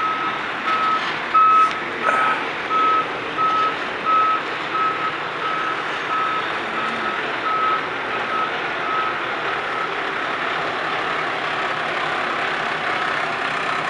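Peterbilt dump truck's backup alarm beeping steadily, about three beeps every two seconds, dying away about nine seconds in. Under it the truck's diesel engine is running.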